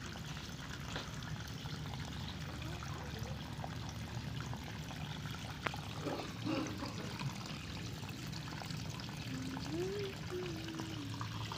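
Water trickling and pouring steadily into a koi pond. A short wavering tone rises and falls near the end.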